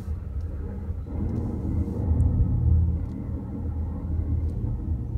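Low rumbling noise from the front brakes of a 2010 Chevy Malibu as it rolls forward in drive, heard inside the cabin and loudest about two to three seconds in. The front brake pads are very worn.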